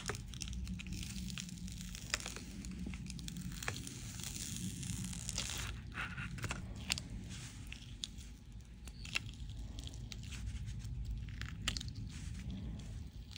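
Thin clear plastic container crinkling and crackling as it is flexed, with scattered sharp clicks. Cured silicone mold peeling away from the container, making a soft tearing sound as it is demolded.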